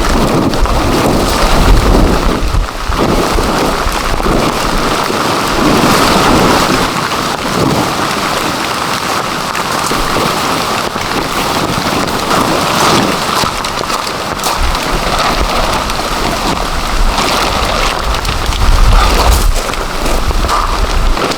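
Heavy rain pouring steadily in a rainstorm, with deep low rumbles about two seconds in and again near the end.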